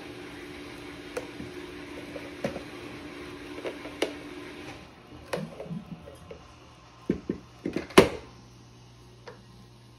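Silicone spatula scraping hummus out of a plastic blender jar onto a ceramic plate, with scattered clicks and knocks of the spatula and jar, the loudest a sharp knock about eight seconds in. A steady low hum underneath stops about halfway through.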